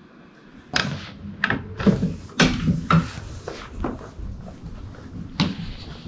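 A string of irregular knocks and bumps, a dozen or so, starting about a second in.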